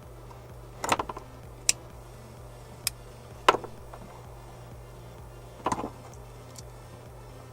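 Sharp clicks and taps of hand tools and wires being handled on a workbench, five in all, the loudest about halfway through, over a steady low hum.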